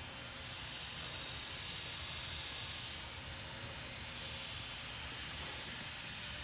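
Steady hiss of background noise with no distinct event standing out.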